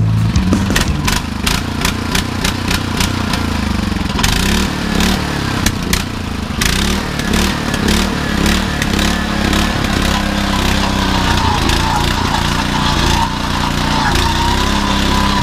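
Gas-powered two-man earth auger's engine running steadily under load as the auger bores a post hole in the ground.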